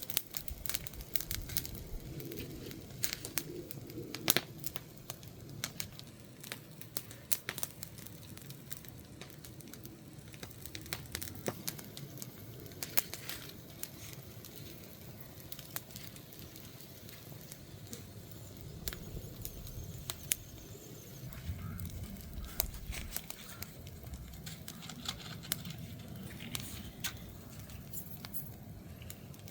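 Wood fire crackling, with irregular sharp pops and snaps over a low steady rumble of burning logs; the loudest pop comes about four seconds in.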